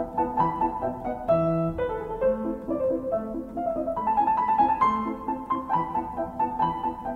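Background music: piano playing a quick run of notes over a moving accompaniment.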